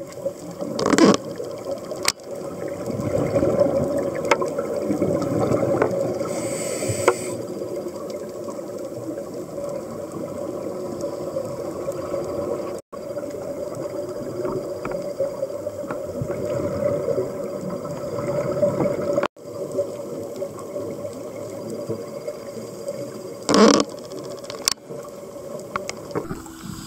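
Muffled underwater sound heard through a camera housing: a steady low rush, with scuba divers' exhaled bubbles gushing from their regulators in short loud bursts about a second in and again near the end. The sound cuts out abruptly twice.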